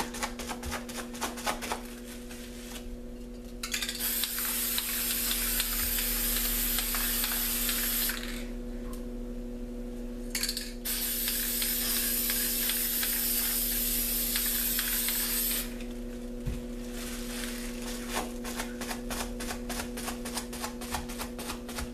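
Aerosol spray paint can spraying onto a canvas in two long hissing bursts, with a short burst between them. Before and after, crumpled plastic crinkles as it is pressed and dabbed on the wet paint to blot it. A steady low hum runs underneath.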